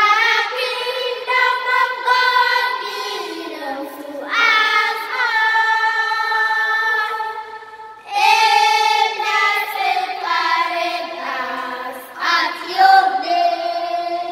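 A small choir of young girls singing together without accompaniment, in phrases with long held notes, the last one held near the end.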